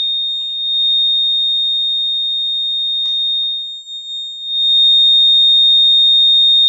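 Electronic buzzer of a homemade flood alarm giving a continuous high-pitched tone, the alarm signal for water reaching the sensor. About three seconds in there is a click and the tone wavers and dips for about a second, then comes back louder and steady.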